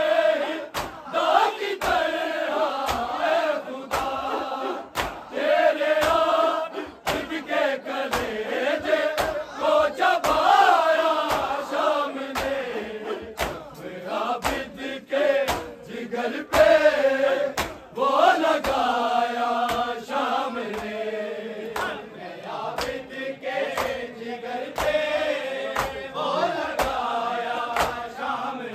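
A group of men chanting an Urdu noha, a Shia lament, in unison over a steady beat of sharp slaps about twice a second: the mourners' matam, rhythmic chest-beating in time with the recitation.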